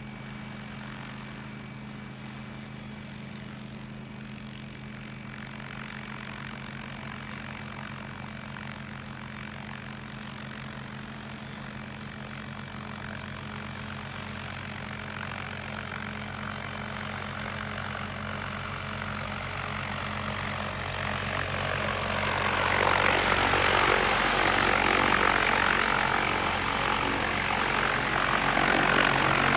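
Remote-controlled crop-spraying helicopter's rotor running with a steady hum. It grows much louder over the last third as the helicopter flies in close.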